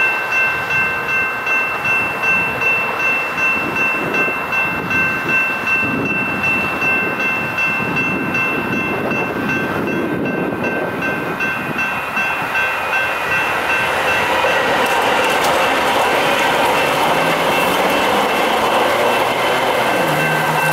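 General Signals Type 2 electronic crossing bell ringing steadily at about two strokes a second. From about halfway through, the rising rumble of an approaching train builds and nearly drowns the bell.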